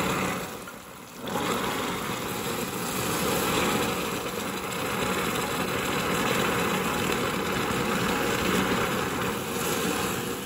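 Boiling water and oil sizzling and crackling loudly against cassava starch, scalding it into dough; the hot liquid cooks the starch on contact. The noise drops off briefly about a second in, then runs on steadily.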